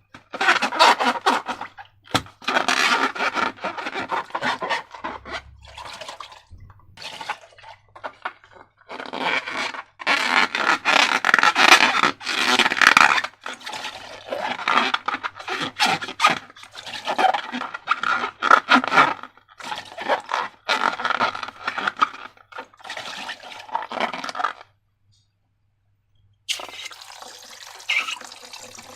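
Irregular scraping and wet, sticky handling sounds of slime being worked, in uneven bursts. After a brief pause near the end, a water tap starts running steadily.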